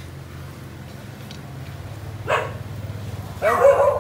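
A dog barking twice, a short bark a little over two seconds in and a louder one near the end, over a steady low hum.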